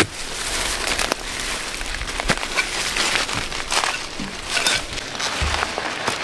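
Irregular crackling and rustling, with scattered sharp snaps and clicks.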